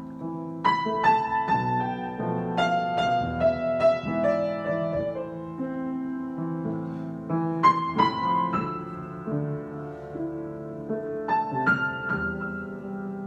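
Solo piano improvisation: groups of struck notes and chords that ring on and fade, with bass notes held beneath. The fresh attacks come in clusters, about a second in, around three seconds in, near eight seconds and near twelve seconds.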